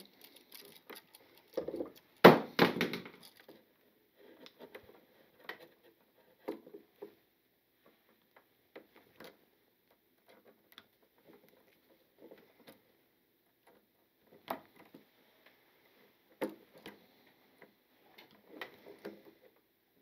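Scattered small clicks, taps and scrapes of pliers and solid wire being handled as two neutral wires are twisted together, with a sharper click about two seconds in.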